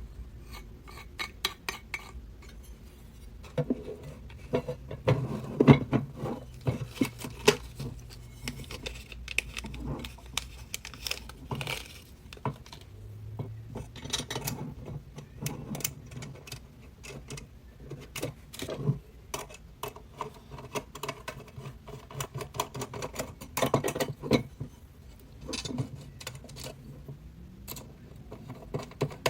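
Irregular clicks, clinks and light knocks of hard parts of a doorbell mount being handled, in clusters, with the busiest stretch a few seconds in.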